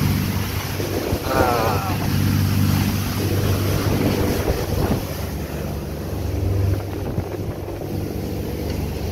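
Motor yacht's engines running steadily underway, a low drone mixed with the rush of wind and water along the hull.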